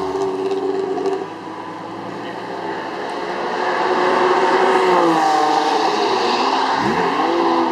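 Sports car engine running hard on a race track: the revs sink as the sound swells in the middle, then climb quickly near the end.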